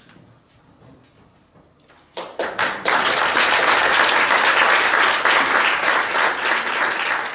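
After about two seconds of quiet, a few scattered hand claps start and quickly swell into steady audience applause.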